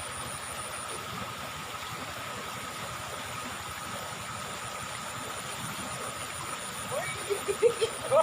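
River water running steadily, with a faint steady high-pitched insect drone over it. Near the end a few short rising chirps come in.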